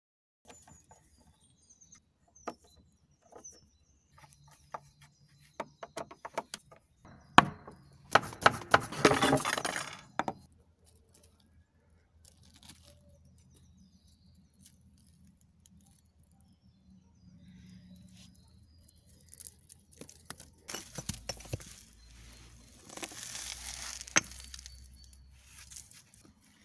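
Charcoal, broken clay and bricks of a forge being pulled apart by hand: scattered clinks and knocks, a loud burst of glassy rattling and scraping about eight seconds in, and more scraping and knocking near the end.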